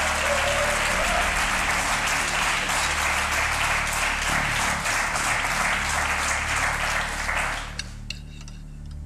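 Studio audience applauding steadily with dense clapping, which dies away about eight seconds in.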